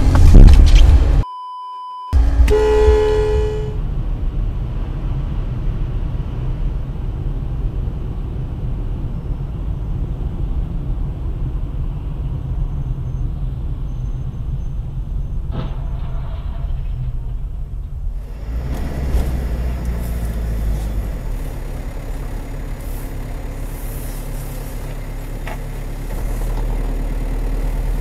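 Dashcam audio: a loud crash in the first second as two cars collide, a short steady beep, then a car horn sounding for about a second. After that comes steady engine and road rumble heard from inside the dashcam car, which changes character about 18 seconds in at a cut to another clip.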